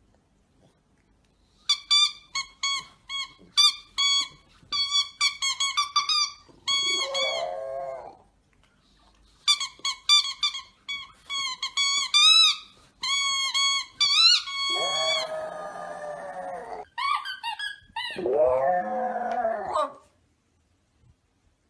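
A French bulldog's rubber squeaky ball squeaking in quick runs of short, high squeaks as the dog bites it. The runs are broken three times by the dog's own lower, drawn-out whining howls.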